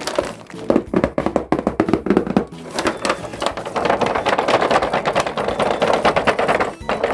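Quick taps and clicks, like plastic being handled, then a denser, even, rhythmic sound from about three seconds in that runs into background music.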